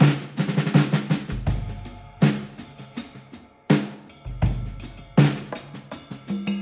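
Background music led by a drum kit: sharp drum hits repeating every second or so, with a deep bass note swelling in twice.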